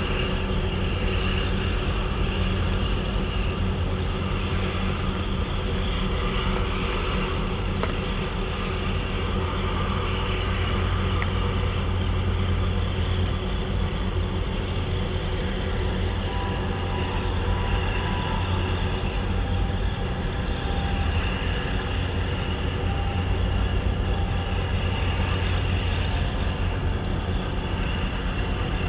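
Steady low drone of ship engines from a passing container ship and its tug, with a fainter steady hum above it.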